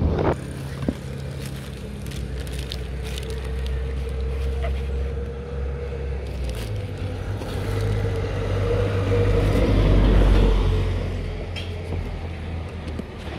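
Motorcycle engine idling with a steady low hum that swells louder about ten seconds in, while a plastic-wrapped parcel rustles and scrapes as it is pulled out of a delivery box, with scattered small clicks.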